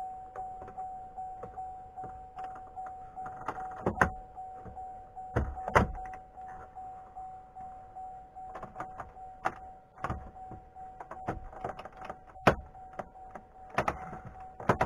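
Plastic dash trim clips on a GMC Sierra cracking and snapping as the bezel is pried loose, a scattered series of sharp snaps that sounds like it's breaking everything. A steady warning chime from the truck, its ignition switched on, sounds underneath.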